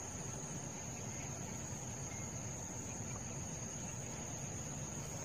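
Steady, unbroken high-pitched insect trill, a cricket-like chirring, over soft outdoor background hiss.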